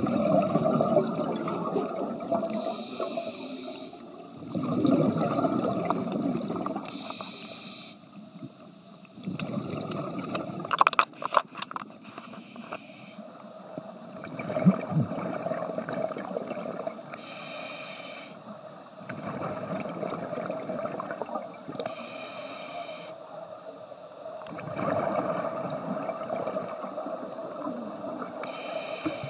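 Scuba diver breathing through a regulator underwater: a short hiss on each inhale, then a longer bubbling exhale, about every five seconds. A quick run of clicks about eleven seconds in.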